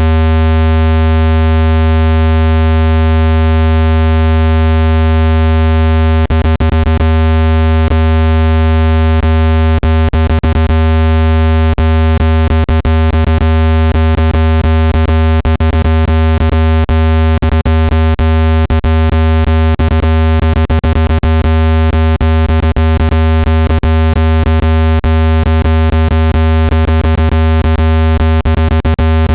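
Steady, deep, buzzy electronic tone with many overtones: a speaker water-ejection tone, played loud to shake trapped water out of a phone speaker. From about six seconds in, irregular clicks break into the tone.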